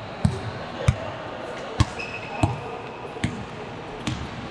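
Basketball bouncing on a hard court floor, about six thumps a little under a second apart, with a short high squeak about two seconds in.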